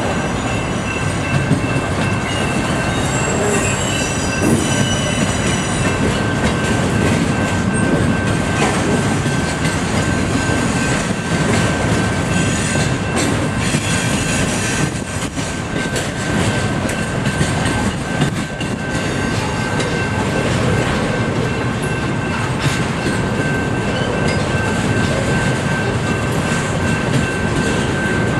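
A double-stack container freight train rolling past, its wheels rumbling steadily on the rails. Short high wheel squeals come in near the start and about four seconds in, over a steady high tone that lasts throughout.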